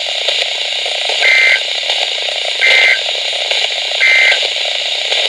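Emergency Alert System end-of-message code: three identical short two-tone data bursts about a second and a half apart, marking the end of the alert. Under them runs a steady hiss from the weak broadcast reception.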